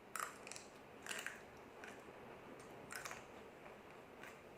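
Close-miked crunching and chewing of a crispy fried noodle-stick snack (mie sapu lidi): a handful of short, crisp crunches, the loudest near the start, about a second in and about three seconds in.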